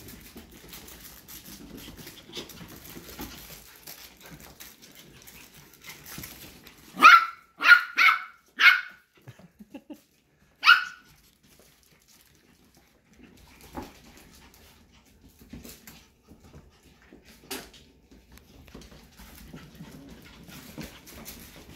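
Eight-week-old mini goldendoodle puppies at play: a quick run of four high-pitched barks about seven seconds in, then one more barely two seconds later, over soft scuffling of paws and toys on the floor.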